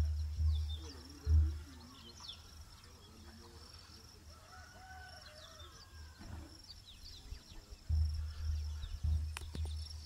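A rooster crows once, faintly, about halfway through, over small birds chirping and a steady high-pitched tone. Wind buffets the microphone at the start and again near the end.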